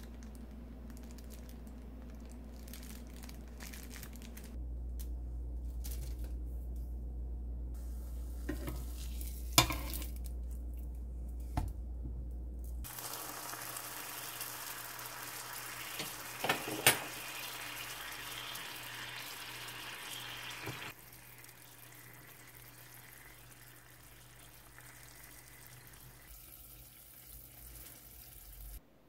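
Brie frying in a nonstick pan, a steady sizzling hiss that turns quieter about two-thirds of the way through. Several sharp clicks and taps stand out, with a low hum under the first part.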